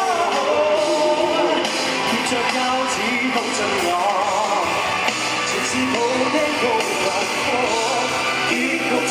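Hong Kong rock band music playing steadily, with a voice singing over the band.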